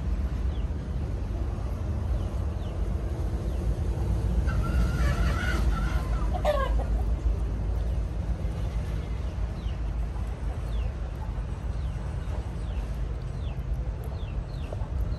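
A rooster crows once about five seconds in, a held call ending in a falling note, over a steady low rumble. Faint short chirps come in the second half.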